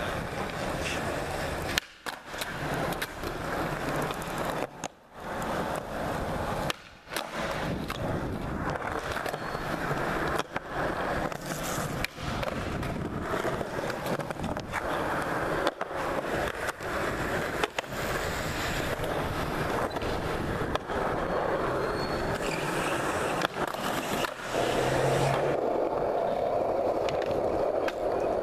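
Skateboard wheels rolling on concrete, broken every few seconds by sharp clacks of the board being popped and landed. A little before the end the rolling changes tone as the board moves onto a different, smoother surface.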